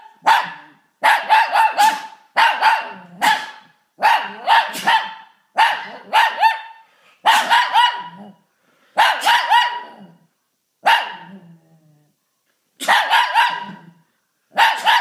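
Shih tzu barking in repeated short runs of several barks, one run about every second and a half, with short silent gaps between runs; the dog barks like this whenever someone sneezes.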